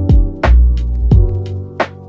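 Background music: a lo-fi instrumental track with sustained chords over a steady drum beat of kick and snare strokes.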